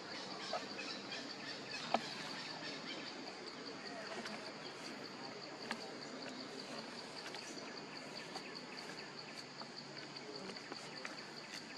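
Forest ambience dominated by a steady, high-pitched insect drone, with scattered small clicks and a sharp tap about two seconds in.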